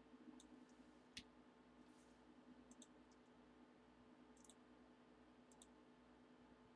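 Near silence: faint computer mouse clicks, a few of them in quick pairs, over a low steady hum.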